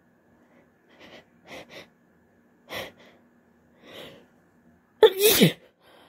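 A woman's allergic hay-fever sneeze: a few short catching breaths, then one loud voiced sneeze about five seconds in, its voice falling in pitch at the end.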